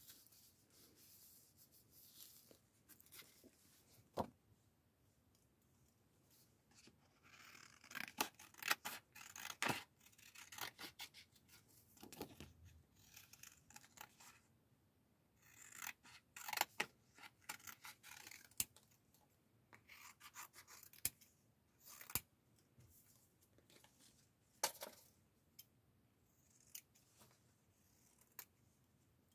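Faint paper-crafting sounds: printed photo cut-outs rustling and rubbing as they are handled and pressed onto a journal page, in several short spells with scattered sharp light clicks and taps between them.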